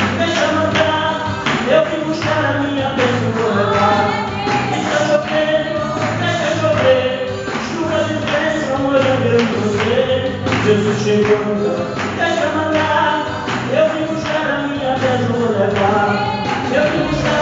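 A man singing a gospel song into a microphone over backing music with a steady beat, played through loudspeakers.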